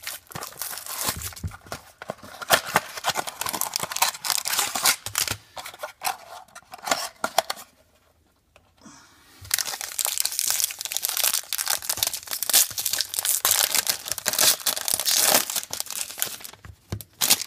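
Plastic wrapping on a trading-card mini box being torn open and crinkled, in two long bouts of dense crackling with a short pause between them.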